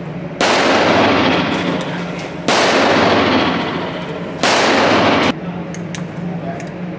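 Three gunshots about two seconds apart, each followed by a long echoing decay; the third is cut off abruptly.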